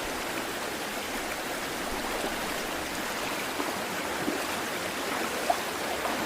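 River water flowing, a steady rushing noise, with one brief tap about five and a half seconds in.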